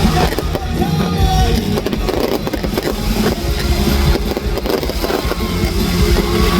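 Loud live music through a concert sound system, recorded up close with a heavy, overdriven low end and some held notes over it.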